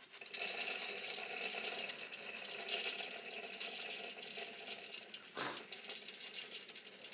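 Whole spelt grains poured from a plastic bowl into a stainless-steel Thermomix mixing bowl: a steady, dense rattle of grains pattering onto the metal, thinning a little near the end.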